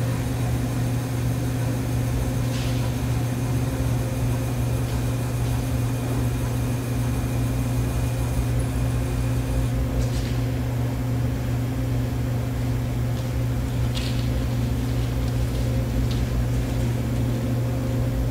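Bridgeport Series I CNC vertical milling machine running with its table traversing: a steady low electric hum with a thin high whine that stops about ten seconds in.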